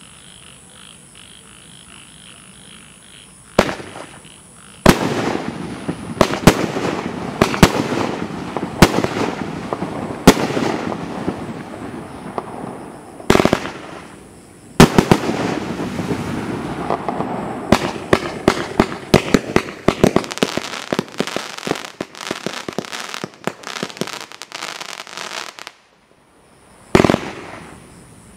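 A Boomwow BW1512 30-shot, 500-gram consumer fireworks cake firing: after a few seconds of faint hiss, shots go off as sharp reports with a noisy haze between them, building into a rapid string of pops in the second half. The string stops abruptly, and after a short gap one more shot goes off.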